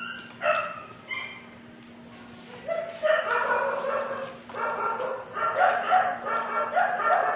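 A dog whining and yipping in high-pitched, broken calls: a couple of short yelps, a lull of about a second and a half, then a long run of whines. A steady low hum sits underneath.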